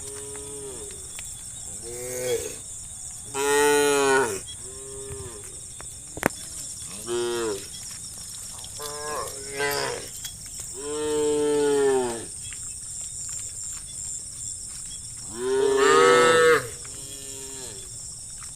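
Cattle mooing, calls coming every second or two, each rising and then falling in pitch. The calls are at differing pitches, from more than one animal. The loudest are near 4 s and 16 s, and the longest lasts about a second and a half. A single sharp click comes about six seconds in.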